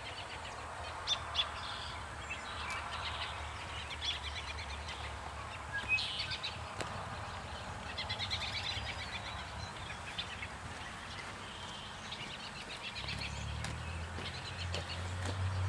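Small birds chirping in short repeated bursts over a faint steady background. A low steady hum comes in near the end.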